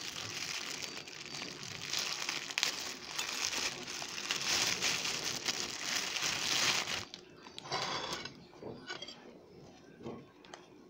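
Thin plastic bread bag crinkling and rustling as it is handled, dense for about the first seven seconds, then quieter, scattered rustles and small clicks.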